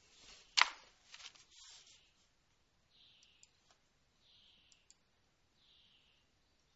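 Broken-up internet-call audio during a connection dropout. A sharp click comes about half a second in. After that, faint bursts of high hiss repeat about every second and a half, with a few small ticks.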